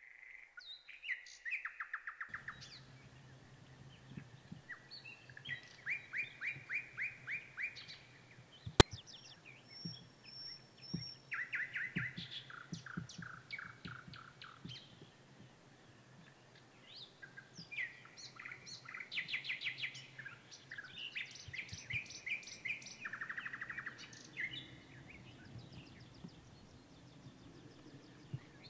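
Wild songbirds singing, several birds overlapping in repeated short trilled phrases. A single sharp click, the loudest sound, comes a little under nine seconds in.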